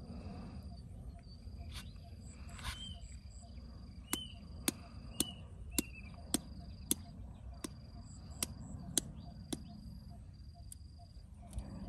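Insects trilling in repeated high-pitched phrases of about a second each over a low outdoor rumble. From about four seconds in there is a run of about ten sharp clicks, roughly two a second; these clicks are the loudest sounds.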